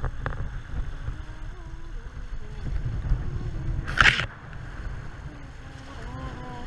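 Wind buffeting the microphone and water rushing along the hulls of a Hobie Cat catamaran under sail, with a sharp splash of spray about four seconds in.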